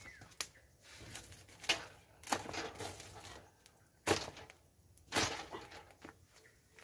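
Potting work with a hand trowel and potting soil: about five short scrapes and rustles with quiet gaps between.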